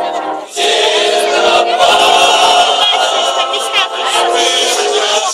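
A group of teenage boys singing together in held, sustained notes, with a short break about half a second in.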